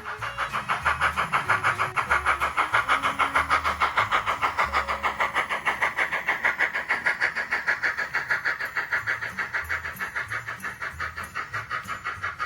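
Model train running past on the layout track, a fast, even clatter of about eight beats a second that grows louder over the first few seconds and fades toward the end, with background music underneath.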